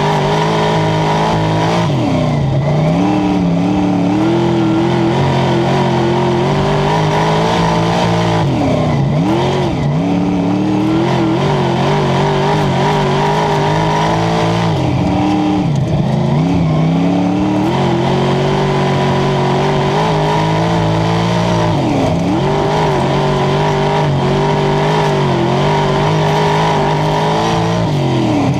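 Wingless spec sprint car's engine heard from on board, running hard at high revs with the pitch dropping sharply and climbing back about every six seconds as the driver lifts off for each turn of the dirt oval and gets back on the throttle, five times in all.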